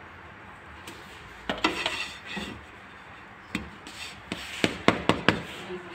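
Spatula scraping and knocking against a nonstick frying pan while a cooked pancake is lifted out. There is a short scrape about a second and a half in, then a quick run of sharp taps in the last couple of seconds.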